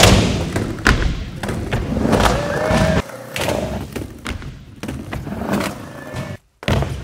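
Skateboard hitting down with a loud thud right at the start, then its wheels rolling over a concrete floor with repeated knocks of the board.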